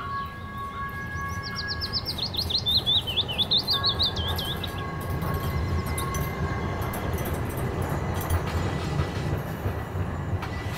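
Streetcar rolling along its rails, a low rumble that builds from about four seconds in, with birds chirping in quick falling runs over the first few seconds.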